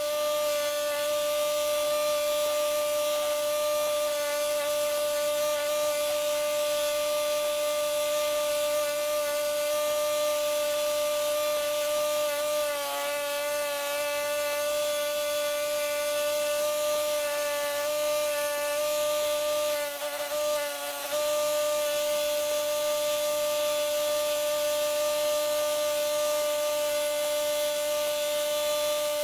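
A small high-speed power tool running with a steady whine while its brush or abrasive rubs against metal, scrubbing rust and grime off a steel vise. The sound eases off briefly twice, about 13 and 21 seconds in.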